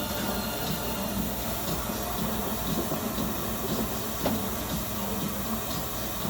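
LG commercial front-load washing machine running mid-cycle: a steady hiss with irregular low thumps from the load in the drum, and one sharp knock about four seconds in.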